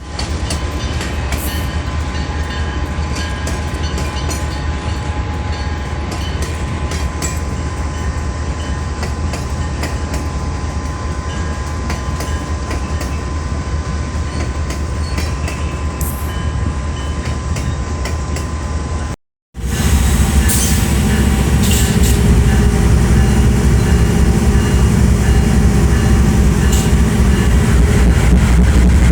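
Freight train rolling past with wheels clicking over the rail joints. After an abrupt cut about two-thirds through, a louder, heavy low diesel locomotive engine runs as a loaded freight train pulls away, the GE 7FDL-16 diesel working under load.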